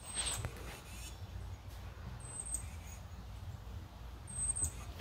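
Low buzzing hum of honeybees flying at a hive entrance. A short, high chirp, most likely a bird's, comes about every two seconds, and there is a brief rustle near the start.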